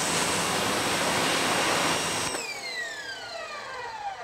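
Westinghouse ePX3000 electric pressure washer spraying through its 15-degree nozzle: the motor and pump run with a steady whine over the hiss of the water jet. About two seconds in the trigger is released, the spray stops and the motor winds down with a falling whine.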